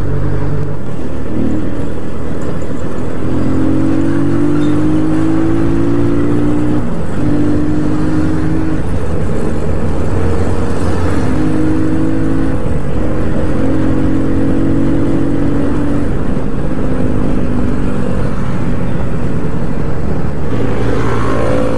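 Motorcycle engine running under way, its pitch climbing through each gear and dropping back at several gear changes, over a steady rush of wind on the microphone.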